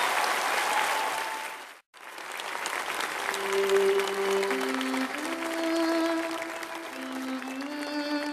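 Audience applause, cut off abruptly about two seconds in; then slow instrumental music begins, with long held notes stepping from one pitch to the next.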